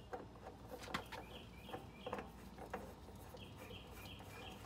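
A bird chirping faintly: runs of short, high chirps repeated a few times a second, one run early and another near the end. A few light clicks come through as well, the sharpest about a second in.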